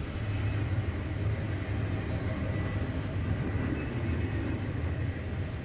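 Intermodal freight train's loaded container cars rolling past, a steady low rumble of steel wheels on rail.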